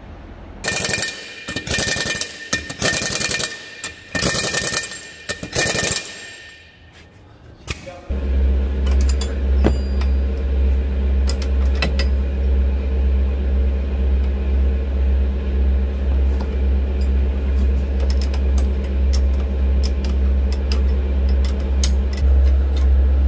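About six short, rattling bursts of a power impact wrench, each with a whine. About eight seconds in, a low, steady, pulsing machine drone starts abruptly and keeps running, with occasional small clicks over it.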